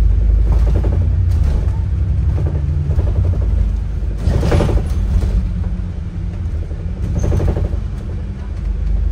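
Inside a moving bus: a steady low rumble of engine and road, with several short creaks and rattles from the bus's fittings. The loudest comes about four and a half seconds in, another near seven and a half seconds.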